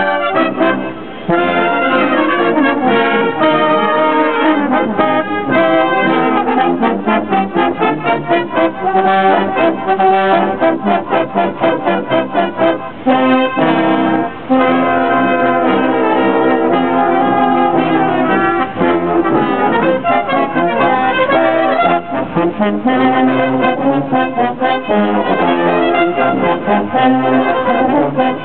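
Brass band playing a tune, several brass instruments sounding notes together without a break.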